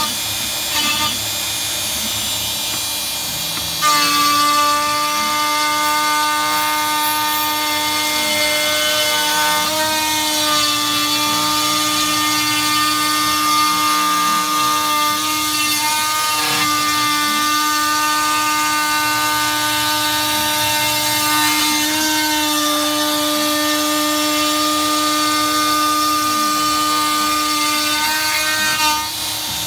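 Shapeoko 3 CNC router spindle cutting a wooden part, with a shop vacuum running at the bit. The steady high whine gets louder about four seconds in, and its pitch sags briefly a few times as the cutter takes load.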